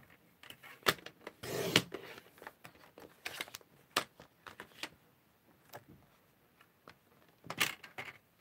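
Cardstock being cut on a paper trimmer and handled. Scattered clicks and knocks of the trimmer's arm and blade, with short scrapes of card being slid and cut, the longest about two seconds in and another near the end.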